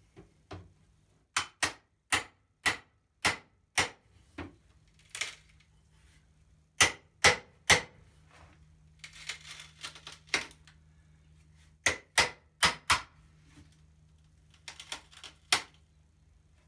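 Sharp metal-on-metal knocks of a hammer striking a pry bar driven in to lever a glued-on wooden window sill off its frame. The knocks come in runs of about two a second, with a few rough rasping noises between runs as the wood is worked loose.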